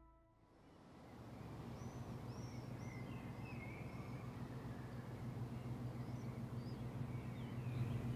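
Outdoor ambience fading in about a second in: a steady low hum, with small birds chirping now and then.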